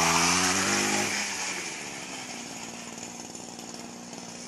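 Two-stroke grass-cutter engine on a motorized drag bicycle, revved high for about a second, then dropping back to a quieter steady run.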